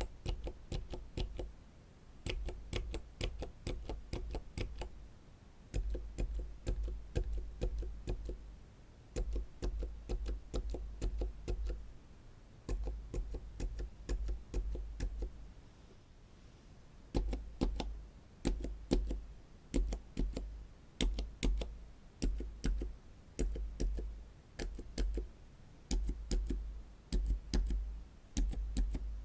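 Silent mechanical keyboard switches pressed repeatedly, a short run of dampened keystrokes for each switch with brief pauses between the runs.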